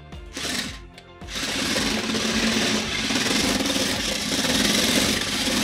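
Toy RC crawler with roller-studded omnidirectional wheels driving on a tabletop: its electric drive motors whine while the hard rubber rollers on the wheels rattle against the table. The steady noise starts about a second in, after a couple of short bursts of driving.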